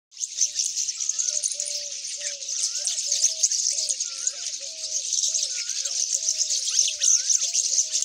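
Morning chorus of many birds: dense, high-pitched chirping throughout, over a repeated low call of short notes coming two or three a second, and a higher rising-and-falling whistle about every second and a half.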